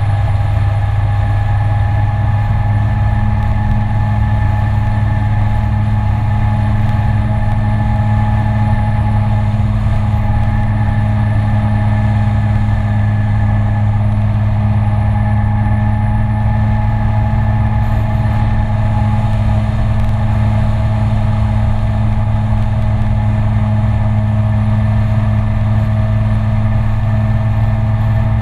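SYM Citycom S 300i scooter's single-cylinder engine running at a steady cruising speed, an even drone, with wind rumbling on the microphone.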